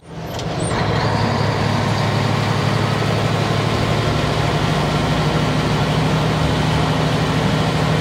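Old semi truck's engine running steadily as it drives along the road pulling a loaded grain trailer, heard from inside the cab. The sound swells up over the first second, then holds level.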